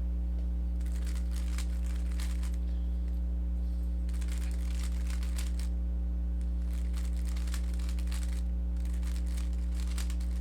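Rubik's Cube layers being turned in quick runs of plastic clicking and rattling, four bursts with short pauses between them, as an OLL algorithm is executed. A steady low electrical hum runs underneath.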